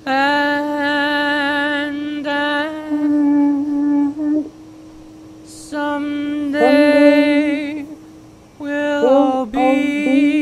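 A slow melody sung in long held notes with vibrato, in three phrases separated by short breaks, over a steady held tone: the line 'and someday we'll all be together once more'.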